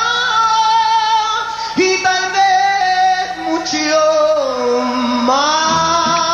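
Mariachi music: a singer holds long notes over violins and trumpets. The melody slides down and back up about four to five seconds in, and a steady strummed rhythm comes in near the end.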